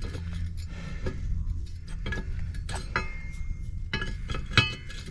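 Metal tools clinking and knocking against the propeller nut and tab washer as the nut is worked tight, a few sharp metallic ticks with brief ringing, the loudest about four and a half seconds in.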